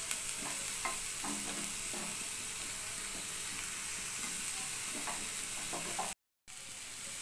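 Chicken tikka skewers sizzling as they fry in butter in a nonstick frying pan: a steady frying hiss that drops out for a moment near the end.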